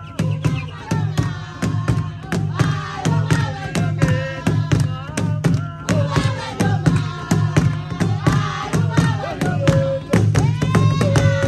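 Drums beating a fast, steady rhythm with group singing and chanting, music for a traditional dance.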